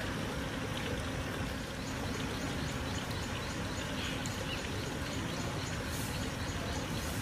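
Steady outdoor background noise with no distinct event.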